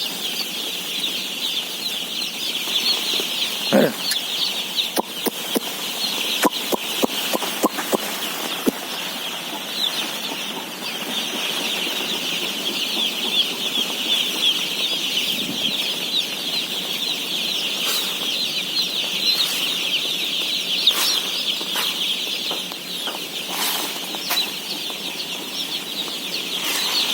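A large flock of day-old chicks peeping continuously, thousands of high chirps blending into one dense chorus. Scattered sharp clicks and knocks cut through it, several between about four and nine seconds in and more near the end.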